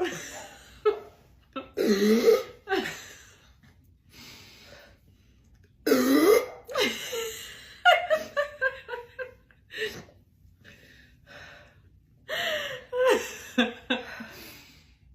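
A woman burping loudly over and over: about four drawn-out burps with quiet gaps between them, and short choppy sounds around the burps.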